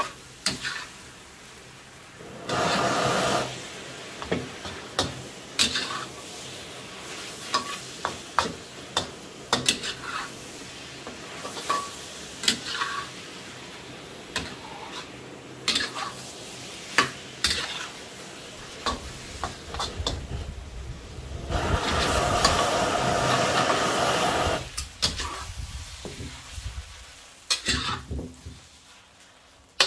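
Noodles and vegetables sizzling in a wok over a gas wok burner, with a metal spatula scraping and clacking against the wok many times. The sizzle swells loudly twice, about three seconds in and again from about 21 to 24 seconds in, and dies down over the last few seconds as the heat is off.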